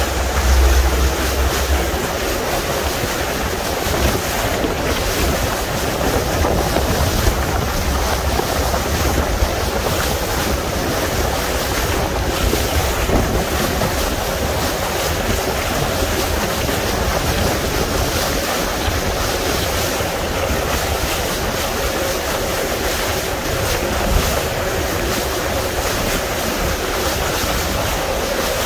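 Steady rush of sea water and wind buffeting the microphone aboard a small fishing boat under way, with a faint steady hum of its engine underneath. The wind gusts hardest on the microphone about a second in.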